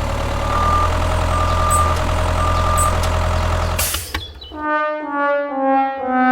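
A truck engine running with a reversing alarm beeping about once a second. About four seconds in, both cut off suddenly, and a brass sound effect plays a slow series of notes stepping downward.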